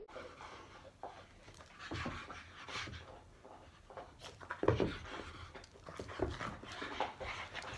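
Boston Terrier panting hard while jumping up for a tennis ball, with paws scrabbling and knocking on the floor; the loudest knock comes a little past halfway.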